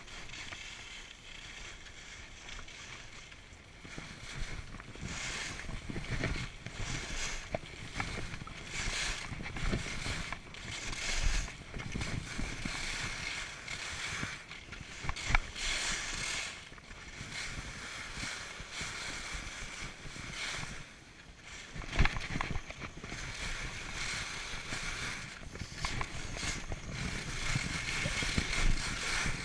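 Skis scraping and hissing on packed snow through a run of turns, the noise swelling and fading with each turn, quieter for the first few seconds, with wind rushing over the camera microphone.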